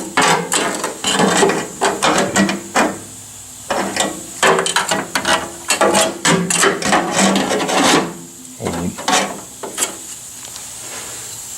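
Hand scraping on sheet metal: irregular runs of rasping strokes, with a short pause about three seconds in and another about eight seconds in.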